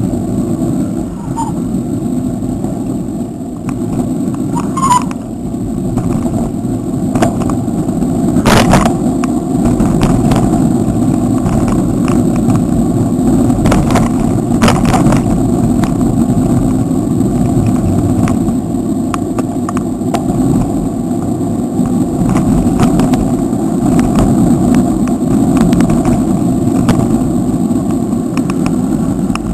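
Wind rushing over the microphone of a camera on a moving bicycle, with tyre and road rumble: a loud, steady low rumble, broken by a few sharp clicks and knocks partway through.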